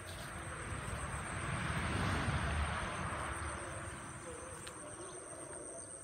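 Insects trilling steadily at a high pitch, with a rushing noise and low rumble that swells in the middle for about three seconds and then fades.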